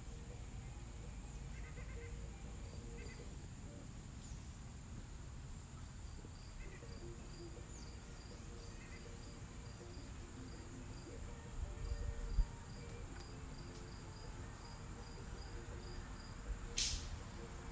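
Insects in the garden: a steady high-pitched drone with a repeated short chirp about twice a second, over a low rumble. A sharp click comes near the end.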